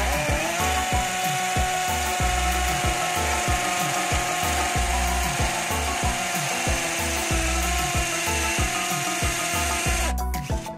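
Nanwei 48VF brushless cordless drill set to hammer mode, its motor running at a steady speed with an even whine that stops about ten seconds in.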